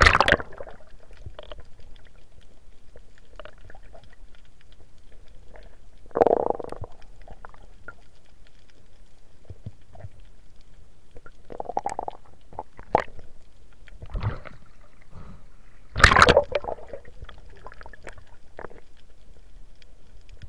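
Muffled underwater sound picked up by a submerged camera: a splash as it goes under, then a low steady rumble of moving water with three louder sloshing surges later on.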